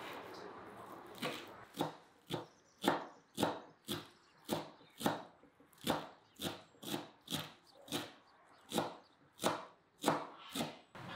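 Large kitchen knife chopping fresh parsley on a wooden cutting board: a steady run of sharp knocks, about two a second, starting about a second in and stopping shortly before the end.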